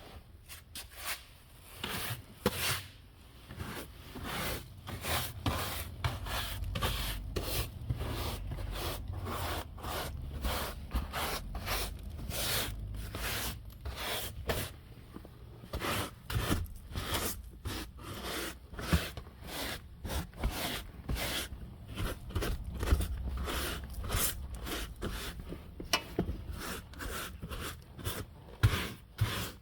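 Irregular scraping, rubbing and clicking of parts being handled and fitted during work on a car, with a low rumble underneath from about six seconds in.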